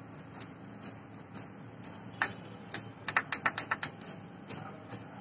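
Light metallic clicks from an Eicher tractor starter motor's Bendix drive assembly being twisted and worked by hand, with a quick run of about eight clicks a little past the middle.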